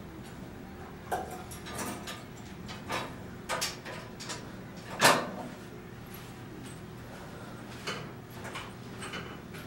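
Irregular clicks and knocks from a cable home gym as its handles, cables and pulleys are worked, the loudest knock about halfway through, over a steady low hum.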